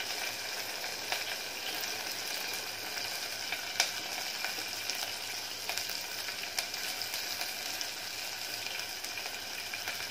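Finely chopped onions sizzling in hot oil in a pressure-cooker pot, a steady hiss with scattered small crackles and one louder pop about four seconds in. The onions have just gone in and are starting to fry.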